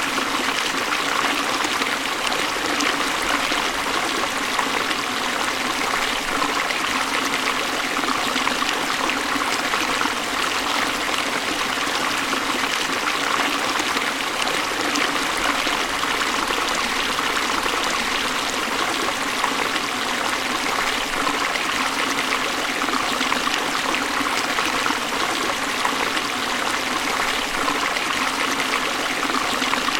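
Waterfall: water pouring and splashing in a steady, unbroken rush, mostly hiss and splash with little deep rumble.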